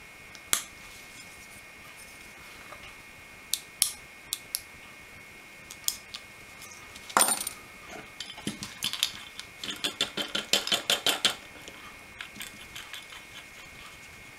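Small hand tool cutting open plastic on a model-railway decoder, heard as scattered sharp clicks and snips. There is one loud snap about seven seconds in and a quick run of clicks around ten to eleven seconds in.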